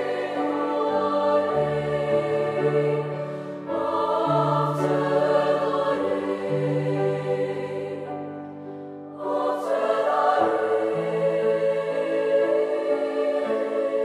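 Treble choir singing in sustained harmony with grand piano accompaniment. The voices break off briefly a little past the middle, then come back in.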